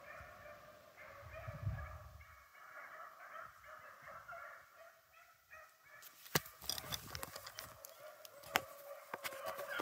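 A pack of rabbit-hunting dogs baying in the distance as they run a rabbit's track. Sharp close snaps and clicks come in from about six seconds in.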